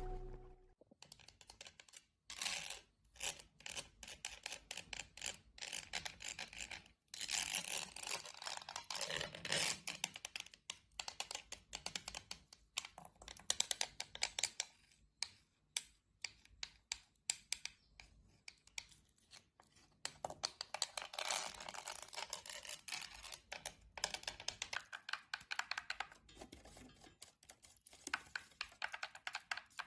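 Rapid tapping and scratching of metal claw-tip finger rings on picture frames: first on a frame covered in seashells, later on a red photo frame still in its plastic wrap. Quick irregular clicks, in places like fast typing, mixed with stretches of scratchy rubbing.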